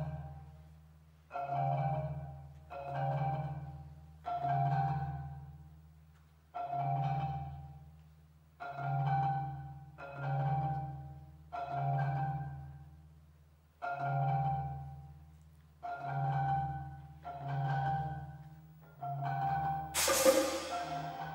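Percussion music: slow, low mallet-percussion notes struck about once every one and a half to two seconds, each ringing and fading away. Near the end a sharp, bright strike is louder than the notes.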